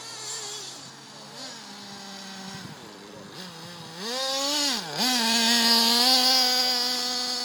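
Nitro engine of a 1/8-scale XTM two-speed RC buggy, distant at first with its pitch rising and falling. About four seconds in it gets much louder as it revs up, dips sharply for a moment, then holds a high, steady note.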